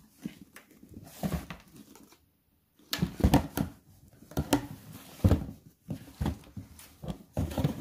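Handling noise from a fleece-lined men's thermal snow boot: rustling and rubbing of the padded cuff and lining under the hands, with a string of irregular knocks and thumps as the boot is turned and moved. There is a brief gap of silence a little after two seconds in.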